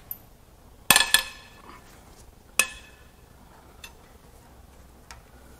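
Sharp metal-on-metal clanks with a short ringing tail: two close together about a second in, a louder one a second and a half later, then a couple of lighter clicks. These come from a steel socket and breaker bar working on an SR20DET cylinder-head bolt.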